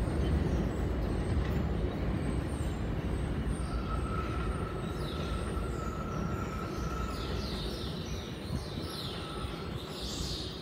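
R142-series New York City subway train running away along elevated track, its rumble slowly fading as it recedes. In the second half, a steady whine and high squeals come in over the fading rumble.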